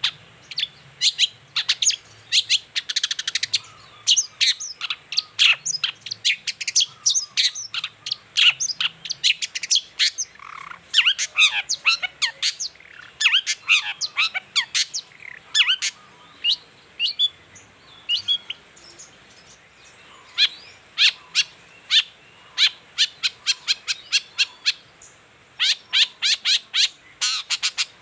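Long-tailed shrike (cendet) in full song: fast runs of short, sharp, high chirps and harsher notes, broken by brief pauses a few times. It is a lure recording meant to set other shrikes singing.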